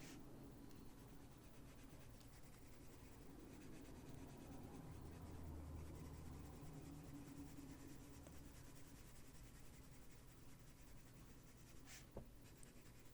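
Faint scratching of a Prismacolor colored pencil shading on paper, over a low steady room hum.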